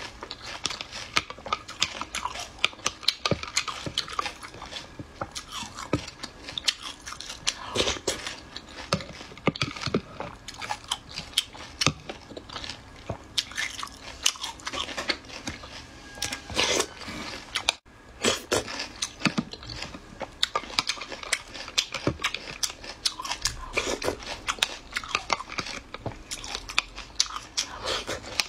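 Close-up eating of pickled mud snails in brine: crunching and chewing of the small shells and flesh, with many sharp crackling clicks.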